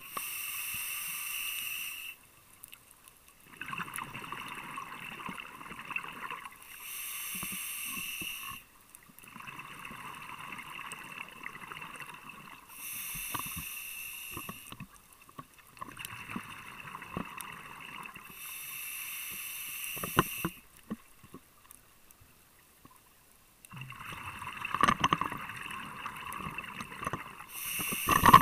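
Scuba diver breathing on a regulator underwater: a hissing inhale through the demand valve alternates with a longer gurgling rush of exhaled bubbles, five inhales in all, roughly one breath every six seconds. A few sharp clicks are scattered through it.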